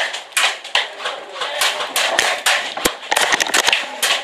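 Airsoft gunfire: rapid, irregular clicking and cracking of shots and BBs striking, with one sharper, heavier crack about three seconds in.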